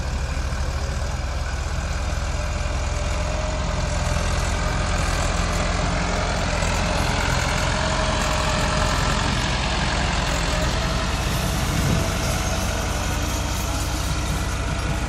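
Massey Ferguson 385 tractor's four-cylinder diesel engine running steadily under load, hauling a fully loaded trolley of earth up a steep climb.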